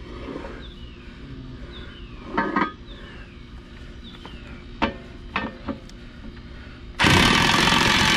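Metal parts and tools clinking and knocking a few times, then, about seven seconds in, a loud power tool starts suddenly and runs steadily. A faint falling chirp repeats in the background.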